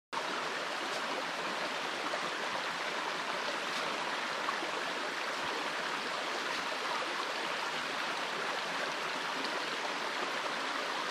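Shallow rocky creek flowing over stones: a steady rush of running water that starts suddenly out of silence.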